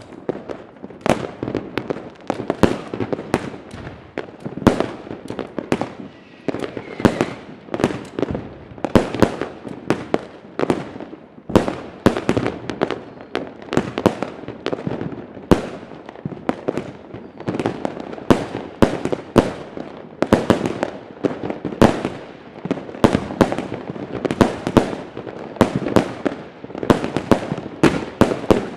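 Royal Fireworks consumer firework cakes firing shot after shot. Sharp bangs come about two a second, each with a short crackle, without a break.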